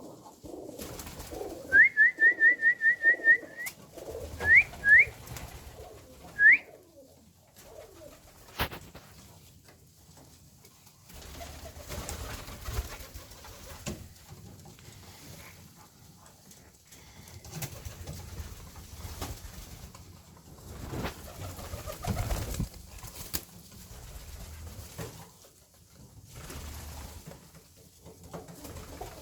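Köröser tumbler pigeons cooing. About two seconds in, a quick run of high, rising chirps is heard, followed by three more single chirps over the next few seconds, with a few sharp clicks later on.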